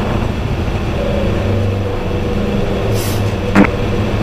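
Boeing 737-900 flight deck in the initial climb after takeoff: a steady rumble of engines and airflow, with steady humming tones. A sharp click sounds about three and a half seconds in.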